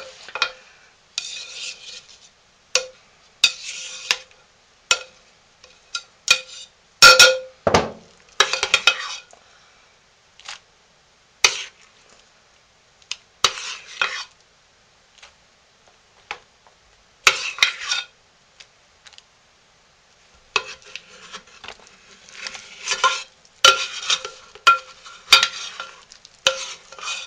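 Metal spoon scraping and knocking against a stoneware slow-cooker crock as thick cooked soap is scooped out, in irregular bursts of clinks and scrapes with a short pause about two-thirds of the way through.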